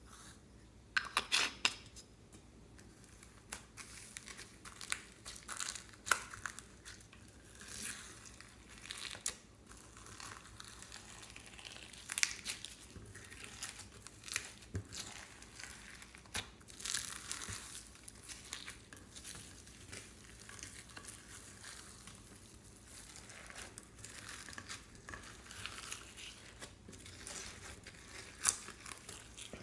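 Slime being squeezed and stretched by hand, making irregular crackles and sharp little pops, with louder clusters about a second in and again near the end.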